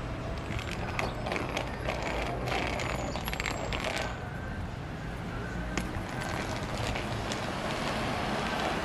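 City street traffic and rushing noise heard from a moving bicycle, with a run of sharp clicks and rattles through the first half.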